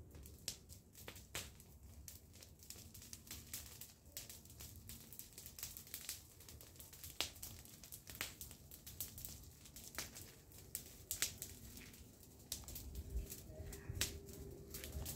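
Smouldering garden fire of dry leaves and debris crackling, with irregular sharp pops and clicks several times a second. Near the end there is a low rubbing rustle of cloth against the microphone.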